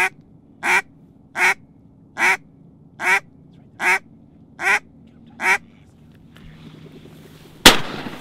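Duck quacks, eight short calls in a steady series about 0.8 s apart, followed near the end by a single loud shotgun shot.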